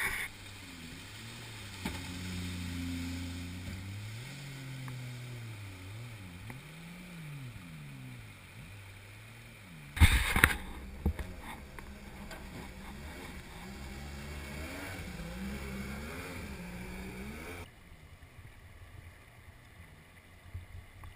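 A mini jet boat's engine running on the river, its pitch rising and falling as the throttle and distance change. There is a loud thump about halfway through. The engine sound stops short near the end, leaving a faint rush of flowing water.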